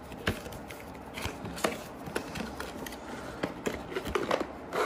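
Retail packaging being opened by hand: a cardboard box and a clear plastic display case slid apart, giving scattered light clicks, taps and rustles.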